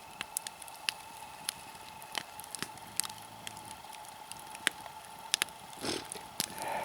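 Campfire burned down to hot coals, crackling with scattered sharp pops at irregular intervals over a faint steady hum. A brief soft rustle comes about six seconds in.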